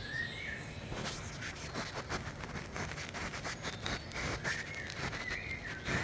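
Birdsong played through a TV speaker: short whistled notes at the start and again in the last second and a half, over rustling and scattered clicks.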